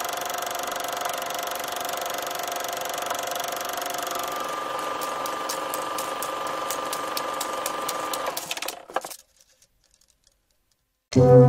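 Old film projector running with a steady mechanical whir, joined about halfway through by an even clicking of about four a second, then fading out to silence. Music starts loudly right at the end.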